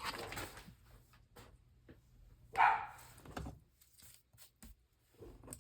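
A dog barks once, briefly, about two and a half seconds in, with faint clicks of paper and craft materials being handled around it.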